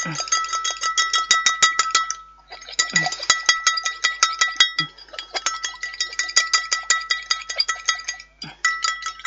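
An egg being beaten in a bowl: the utensil strikes the bowl in quick, rhythmic clinks, several a second, and the bowl rings with each stroke. Three short pauses break the beating.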